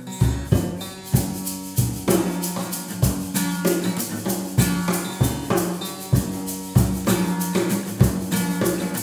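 Instrumental song intro: an acoustic guitar strums chords over a cajón playing a steady rock beat of deep bass thumps and sharp slaps, with a shaker adding quick hissing strokes on top.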